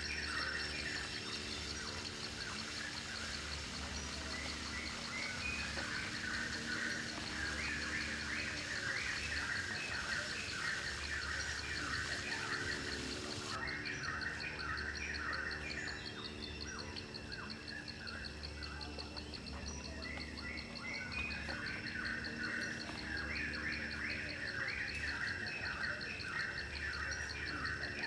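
Birds chirping in repeated bursts of short calls over a steady, fast-pulsing insect trill, with a low steady hum underneath.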